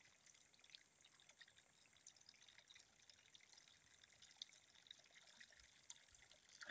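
Very faint trickle of water from a pipe spout falling into a stone trough, heard as a scatter of tiny splashes.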